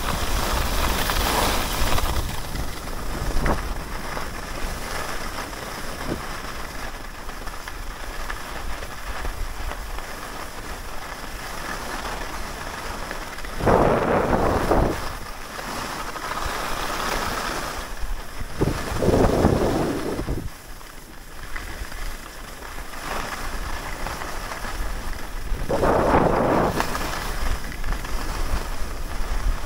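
Wind rushing over the microphone of a camera worn while skiing downhill. Skis hiss and scrape over packed snow, swelling into a few longer scrapes in the second half.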